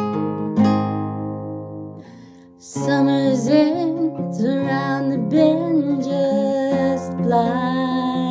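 Acoustic guitar strumming chords, dying away briefly about two seconds in. From about three seconds in, a voice sings a slow melody over the guitar.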